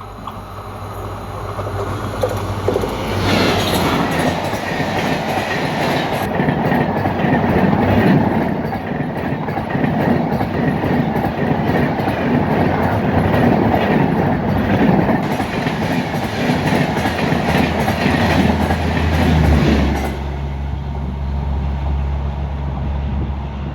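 A train passing close by at speed: a loud rush of wheel and rail noise builds about three seconds in, with rapid clickety-clack of wheels over rail joints. It cuts off about twenty seconds in, leaving a low steady hum.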